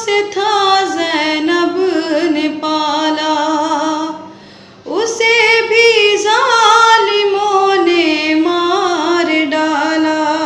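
A young woman's voice singing a noha, a Muharram lament, with no instruments: long drawn-out notes with wavering ornaments, broken by a short breath pause about four seconds in.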